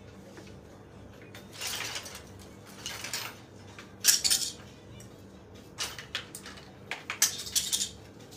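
Clothes hangers and garments being handled during a quick change: several short clattering, rustling bursts, the loudest about four seconds in.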